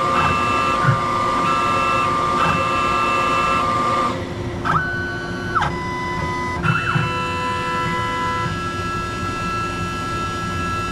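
Ilco Idea electronic key machine running its automatic cutting sequence on a key blank: a steady motor whine overlaid with stepper-motor tones that switch pitch back and forth. Near the middle come a few short rising and falling whines as the carriage moves.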